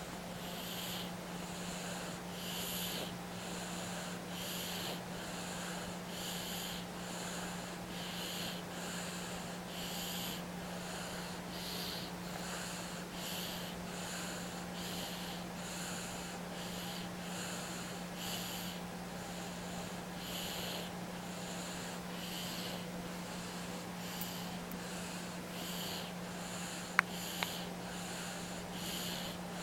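A baby of about nine months snoring in sleep: a hissy, snorting snore with each breath, repeating in a steady rhythm over a steady low hum. Near the end, two sharp clicks.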